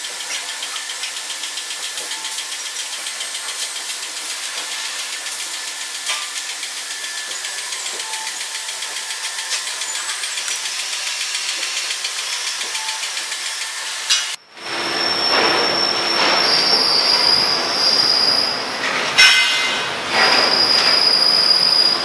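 Steady mechanical noise with a fast, even pulse. About two thirds of the way in it cuts off suddenly and gives way to louder, rougher mechanical noise with a high, steady squeal and a few knocks.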